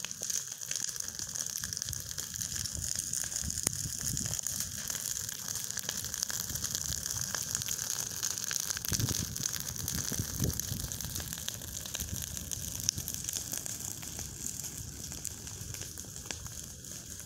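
Open brush fire: a heap of dry branches burning, with dense continuous crackling and popping over the hiss of the flames. It eases off slightly near the end.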